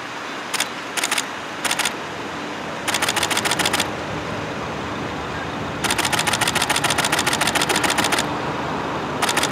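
Camera shutters firing in rapid bursts of clicks: a few short bursts at first, then longer runs lasting about a second and about two seconds. Under them is a steady hum of street traffic.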